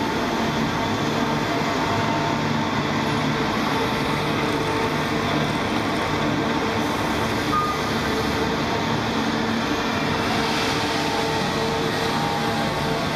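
Steady mechanical drone of a giant mechanical elephant's engine and hydraulic machinery running, with a few unchanging hum tones on top.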